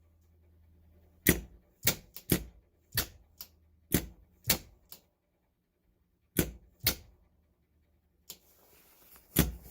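RC2W motor-starter contactor clacking over and over as its armature pulls in and drops out, about a dozen sharp clacks in irregular groups with a faint low hum under them. The contacts are still sticking rather than dropping out right away, a fault the owner traces to rust.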